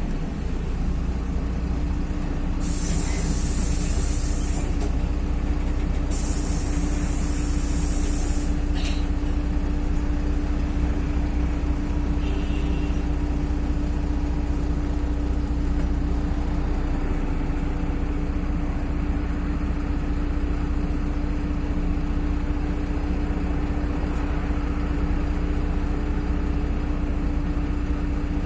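Inside a LiAZ-5292.21 city bus, the diesel engine runs steadily under a constant low hum. About three seconds in and again about six seconds in come two hisses of released compressed air, each roughly two seconds long, followed by a sharp click.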